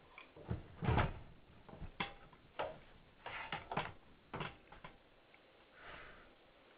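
Irregular clicks and knocks, about a dozen scattered taps with the loudest about a second in, from objects being handled near a microphone on a conference call line.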